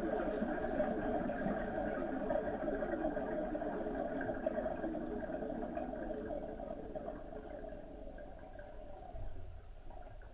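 Gas leaking from a small underwater nozzle, recorded underwater: a dense stream of bubbling that thins and fades over the last few seconds as the flow dies away.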